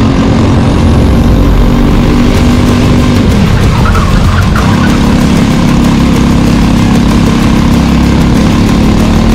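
Racing kart's Briggs & Stratton 206 single-cylinder four-stroke engine running hard at high revs. About three seconds in the pitch drops away briefly, as when lifting for a corner, then it comes back up and holds steady.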